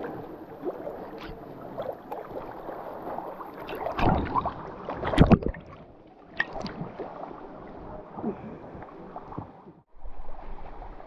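River water splashing and sloshing as someone wades through a shallow rock pool, heard close up at the water's surface, with two louder splashes about four and five seconds in.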